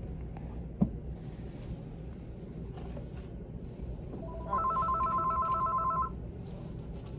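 A telephone ringing: one fast-trilling electronic ring, about a second and a half long, starting a little past the middle, over a steady low background hum.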